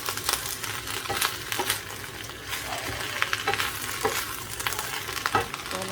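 Shredded cabbage sizzling in oil in a frying pan while being stir-fried, with a steady hiss and many short clacks and scrapes of the utensil against the pan.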